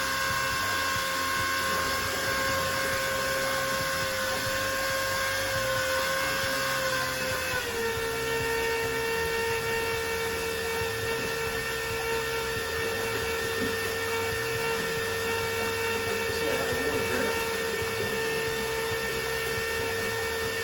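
Small transfer pump running steadily while pumping RV antifreeze into a tractor tire as liquid ballast, a motor whine that drops slightly in pitch about a third of the way in.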